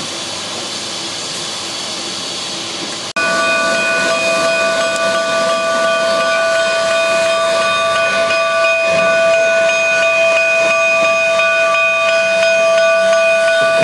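Durango & Silverton steam locomotive No. 473 venting steam with a steady hiss. About three seconds in it becomes suddenly louder, and a steady chord of whistling tones holds over the hiss for the rest of the time.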